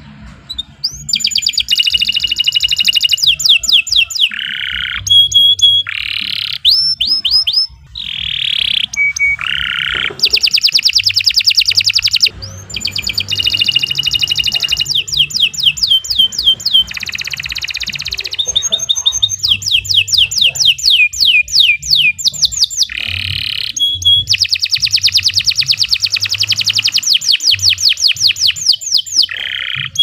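Domestic canary singing a long, unbroken song: fast trills of rapidly repeated high notes alternating with buzzy and clear whistled phrases, starting about a second in.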